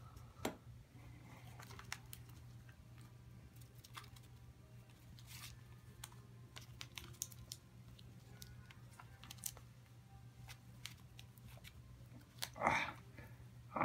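A pet squirrel scuffling with a hand on carpet: faint, scattered scratches and clicks of claws and teeth on carpet, fur and skin, with a louder brief scuffle near the end.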